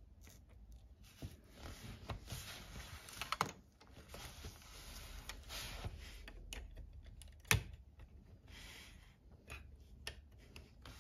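Fingers handling a LEGO brick model car: small plastic clicks, taps and rubbing of bricks and rubber tyres, with a sharper click about seven and a half seconds in as the loudest sound.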